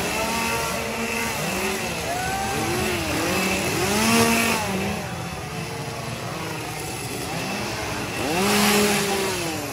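Several small engines revving up and down over and over, each rev rising and falling in pitch and overlapping the others. Louder revs come about four seconds in and near the end.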